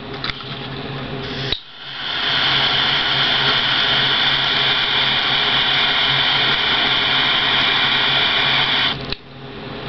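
Jet (torch) lighter lit with a click about a second and a half in, its flame hissing steadily for about seven seconds while it melts solder, then cut off suddenly near the end.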